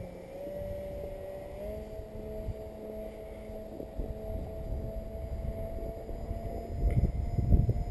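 Twin brushless motors (D2826-6, 2200kv) with 6x4 propellers on a scratch-built RC plane droning overhead, the pitch stepping up slightly twice early on. Near the end, wind buffets the microphone with low rumbling gusts.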